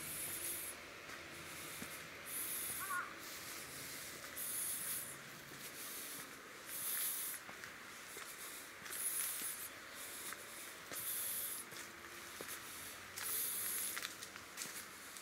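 Footsteps crunching through dry fallen leaves on a path, a dry rustle about every two seconds, with a crow cawing once about three seconds in.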